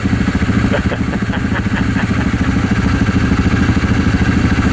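Vehicle engine idling steadily close by, a fast even putter with no revving, and a few faint clicks about a second or two in.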